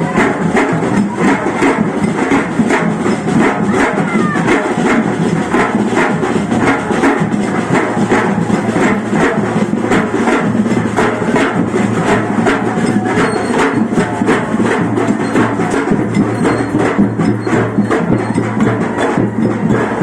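Live procession music led by drums and percussion, with a sharp, wood-block-like stroke keeping a steady quick beat of about two to three strokes a second over a dense, continuous band of sound.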